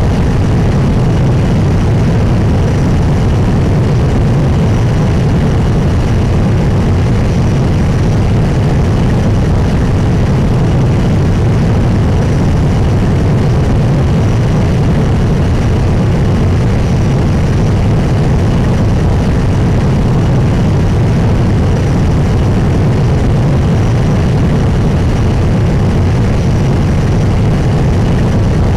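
Turbofan jet engine running steadily in a wind tunnel, a constant low roar with a faint high whine over it.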